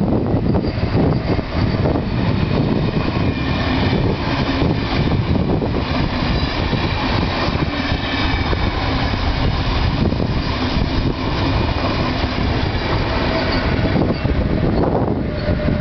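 KTT intercity through train, an electric locomotive hauling double-deck passenger coaches, passing close by: a steady, loud rush and rumble of wheels on rail. The sound thins out near the end as the locomotive at the rear goes by.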